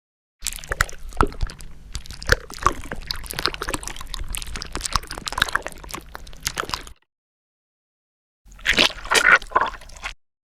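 Wet squelching gore sound effects of flesh and maggots: about six seconds of dense wet clicks, crackles and squishes. After a silent gap, a second, shorter and louder squelching burst comes near the end.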